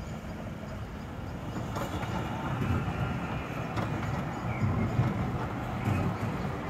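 Tram passing close below: a low rumble from its wheels and running gear, growing louder from about a second and a half in, with a few sharp clicks from the wheels on the rails.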